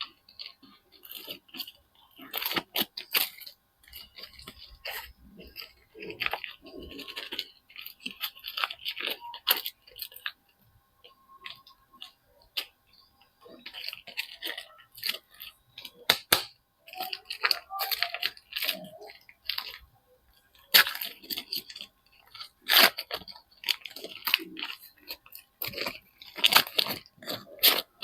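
Soap packaging being unwrapped by hand: wrappers crinkle and tear in irregular bursts, with sharp clicks and taps scattered throughout.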